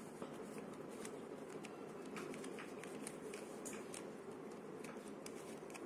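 Faint, irregular plastic clicks of a Twister Cube puzzle's layers being turned quickly by hand.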